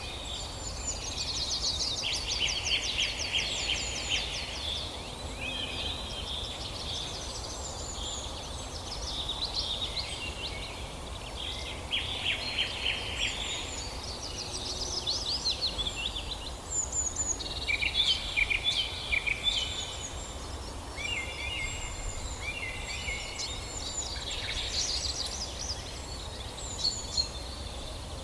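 Several songbirds singing and chirping over one another, with fast trills, repeated high chirps and short whistled phrases, over a steady low rumble.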